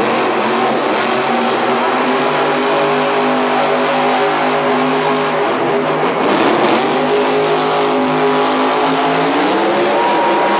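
Grave Digger monster truck's supercharged V8 running hard at high, fairly steady revs as the truck spins donuts in the dirt. The pitch climbs near the end as the throttle opens further.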